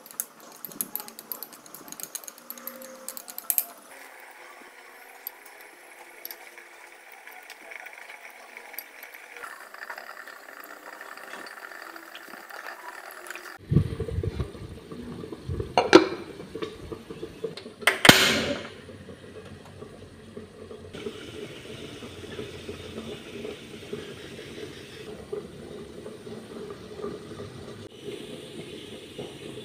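Light clicks and taps at the pot, then about halfway through two loud clinks of a glass pot lid being set down, followed by a steady low bubbling of the braising liquid simmering under the lid.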